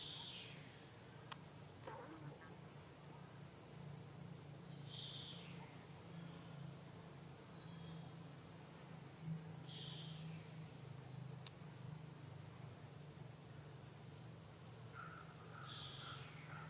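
Faint insect chorus trilling steadily at a high pitch, with a falling call repeating about every five seconds and a low steady hum underneath; two sharp clicks stand out.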